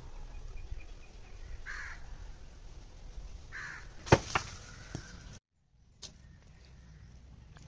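A crow cawing twice, about two seconds apart, followed by two sharp knocks in quick succession, the loudest sounds here. The sound then drops out for a moment and comes back quieter.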